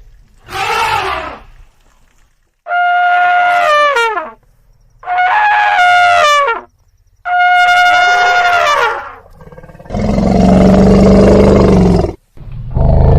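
Elephant trumpeting: a short call, then three long trumpet blasts, each held on one high pitch and sliding down at the end. About ten seconds in comes a deep, rough elephant roar, and another begins near the end.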